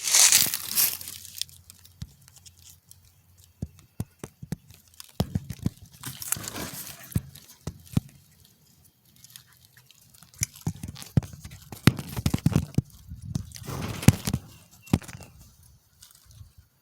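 Irregular clicks, knocks and crunching rustles, with a short burst of hiss at the very start.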